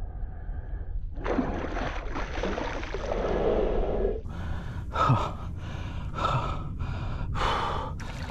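An angler breathing hard and gasping as he strains against a big snook held on a tight drag. A long breathy stretch is followed by a run of short, quick breaths, over a steady low wind rumble on the microphone.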